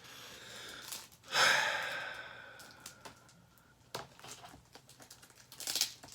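A person's long breathy exhale, like a sigh, starting sharply about a second in and fading away, followed by a few faint clicks.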